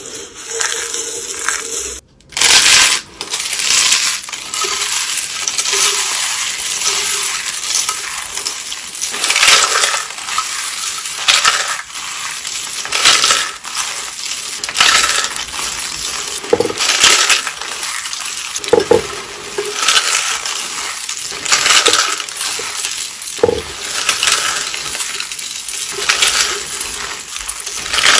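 Soap roses and soap curls being crushed, crunching and crackling in repeated squeezes about every one to two seconds, with a brief break about two seconds in.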